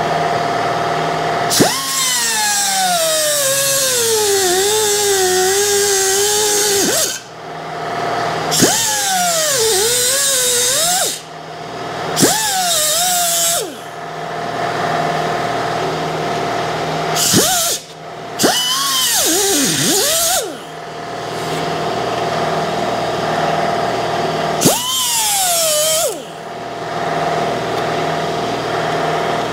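Pneumatic cut-off tool with a small abrasive wheel cutting through a rusted steel motorcycle seat pan in repeated passes of a few seconds each. The motor's whine drops in pitch as the wheel bites into the metal and climbs back between cuts, while the tool runs on with a steady air-driven whine.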